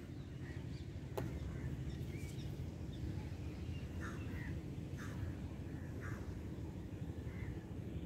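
Outdoor ambience: a steady low rumble with a handful of short, faint bird chirps in the second half, and a single click about a second in.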